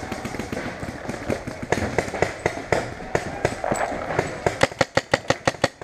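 Paintball markers firing: scattered shots, then a fast string of about nine shots a second near the end.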